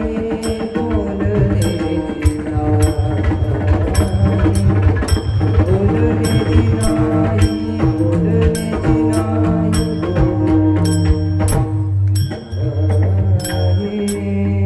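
Instrumental stretch of a Marathi bhajan with no singing: a sustained melody instrument over a steady low drone, with a hand drum and regular sharp metallic cymbal strikes keeping the beat. The music thins out briefly about three-quarters of the way through.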